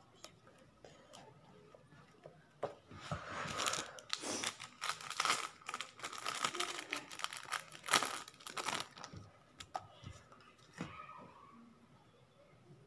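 A thin clear plastic sheet being handled and crinkled, in a run of crackling rustles with small clicks lasting about six seconds in the middle.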